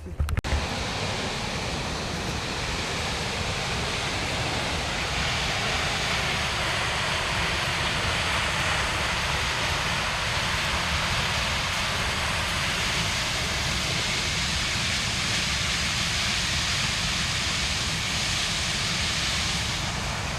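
A steady rushing noise that starts abruptly at the very start and holds level throughout, with no voices.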